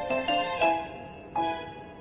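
Background music: a light tune of struck, bell-like notes, each ringing briefly and fading.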